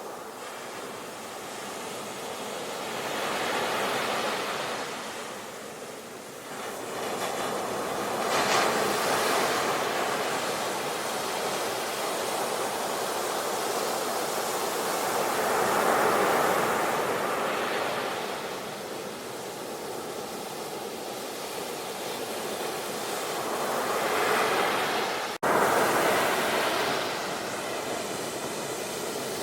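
Ocean waves washing ashore, a steady surf hiss that swells and falls back as each wave breaks, with a brief cut in the sound about 25 seconds in.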